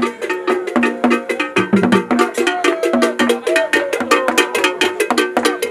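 Percussion music with rapid, dense strikes of drums and a bell or wood block, several to the second, and a pitched melodic line running over them.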